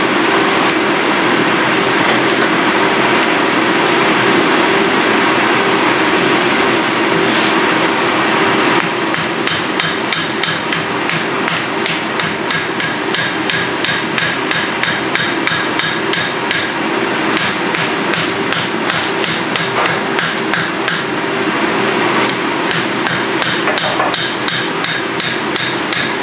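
Hand-hammer blows on red-hot iron on an anvil, the hot-forging of an anvil part, coming at roughly three a second from about nine seconds in. A steady rushing noise runs underneath, alone at first.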